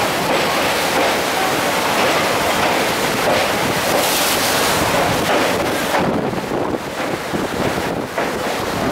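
Wind buffeting the microphone over the rush of rough sea surf churning around a bridge pier, a loud steady noise that eases a little about two-thirds of the way through.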